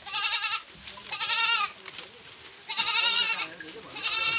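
Goats bleating: four loud, quavering bleats, about one every second.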